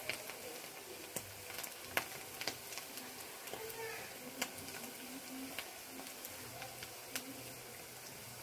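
Boiled potato strips frying in hot oil in a wok: a steady sizzle with scattered sharp pops.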